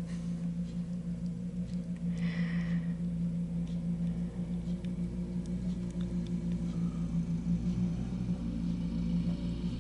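Engine of a Prorab walk-behind snowblower running steadily while it clears snow, an even drone. A brief hissing rustle about two seconds in.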